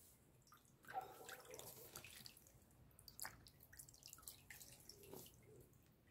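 Faint, scattered wet clicks and drips of Orbeez water beads being picked through by hand and dropped into a bowl.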